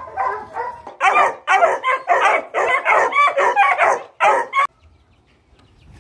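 Young Treeing Walker Coonhounds barking and baying in a fast string of loud calls, about four a second, that cuts off suddenly near the end.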